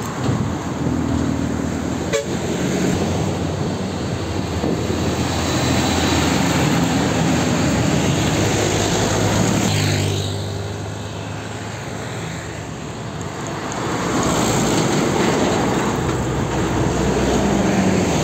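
Heavy diesel trucks passing close by on a road, engines running over tyre and traffic noise, with a sharp click about two seconds in. About ten seconds in the sound falls away, then swells again from about fourteen seconds as another truck comes near.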